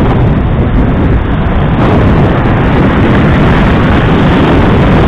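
Loud, steady wind and ride noise on the microphone of an action camera mounted on a moving motorbike, a dense rumble with no clear engine note.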